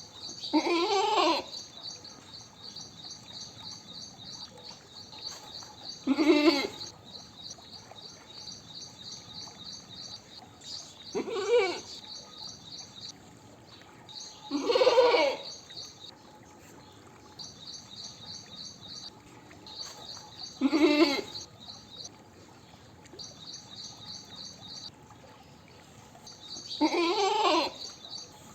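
Goat bleating six times, a few seconds apart, each bleat a wavering call of about a second. Between the bleats, a rapid high chirping trill keeps repeating in the background.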